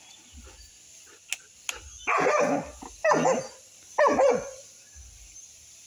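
A dog barks three times, about a second apart, the loudest sounds here. Two sharp clicks come just before the first bark.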